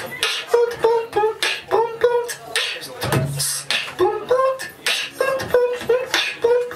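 Solo beatboxing into a handheld microphone: a fast rhythm of sharp kick and snare-like mouth hits, woven with short hummed pitched notes, and a low held bass tone about three seconds in.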